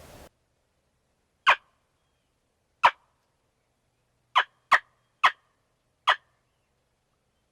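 Turkey clucking: six short, sharp clucks spread over about five seconds, with dead silence between them.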